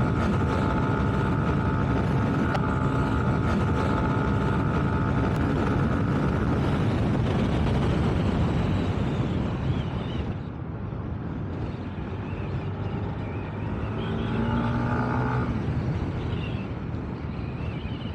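Kymco KRV Roma GT scooter's 175 cc water-cooled engine running under throttle, with wind rushing over the microphone during the ride. About ten seconds in the sound drops as the throttle eases off, then the engine picks up briefly again.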